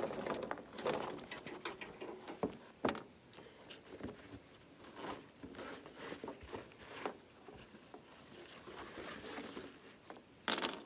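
A zippered fabric Garrett finds pouch being opened and rummaged through by hand: irregular fabric rustling with scattered light clicks, and a louder burst of handling near the end.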